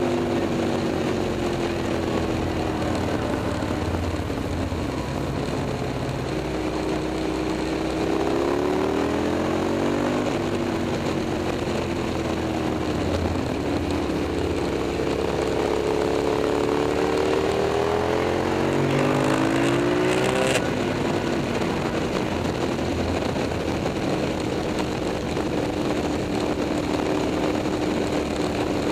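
KTM 990 SMT's V-twin engine through a LeoVince aftermarket exhaust while riding. The engine note rises and falls with the throttle and gear changes, with a brief hiss that cuts off abruptly about two-thirds of the way in. The note then holds a steady pitch for the last several seconds.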